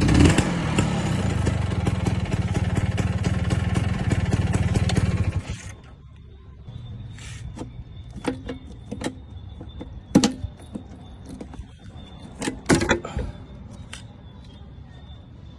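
Vespa PK125's single-cylinder two-stroke engine idling, then cut off about five seconds in. After it stops, a few sharp clicks and knocks follow.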